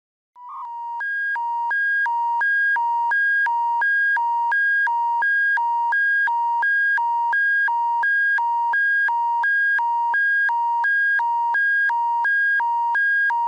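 Electronic emergency alert attention signal: a brief steady beep, then a loud tone alternating between a lower and a higher pitch, switching about three times a second. This is the signal that announces an emergency broadcast bulletin.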